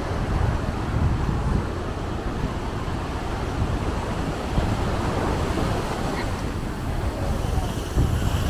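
Wind rumbling and buffeting on the microphone outdoors, over a steady wash of background noise from surf and road traffic.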